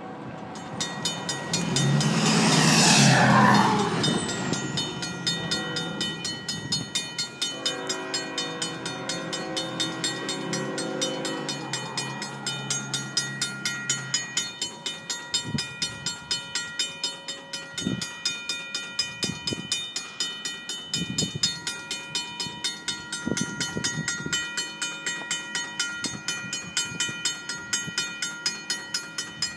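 Railroad crossing bells, including a Safetran mechanical bell, ringing steadily at about three strokes a second. A vehicle passes close by about two to four seconds in, which is the loudest moment. An approaching freight locomotive's horn sounds in the distance for a few seconds around eight seconds in.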